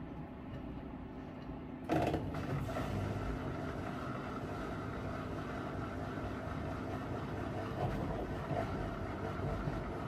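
Miele W5877 washing machine running. A steady low rumble steps up suddenly about two seconds in, then carries on as a steady, louder machine rumble.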